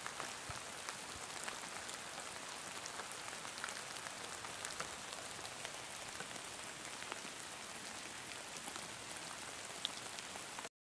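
Steady rain falling: an even hiss dotted with sharp individual drop ticks. It stops abruptly near the end.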